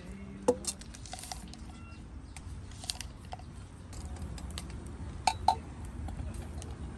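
A stainless steel camping mug is set down on a wooden tabletop with a sharp knock about half a second in, over small crackles and ticks from a wood fire. Near the end come two quick, ringing metal clinks.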